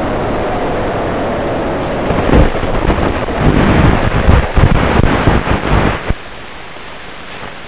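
Wind rush and buffeting on a flying wing's onboard FPV microphone as it skims low and comes down in grass, with several thumps in the middle. About six seconds in it drops to a steady hiss.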